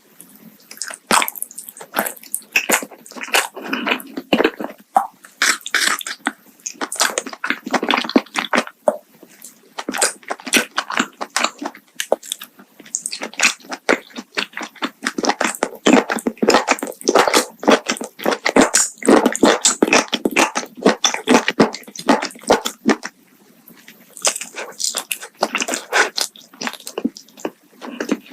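Close-miked eating: rapid crackling crunches and chewing of food, in runs of bites with short pauses between them.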